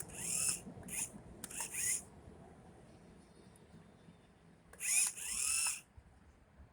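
Small electric motor of an off-road RC truck whining in bursts as the throttle is pressed, the pitch rising with each burst: three short bursts in the first two seconds, then a longer one about five seconds in.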